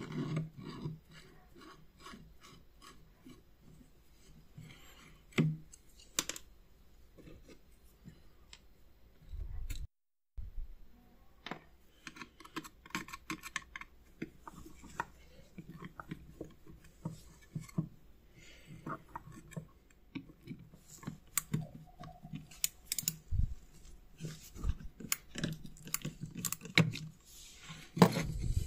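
Screwdriver working small screws out of an antique doorbell's metal base: many light metal clicks and scrapes, with screws and small parts clinking as they are set down on a wooden bench. A few heavier knocks near the end.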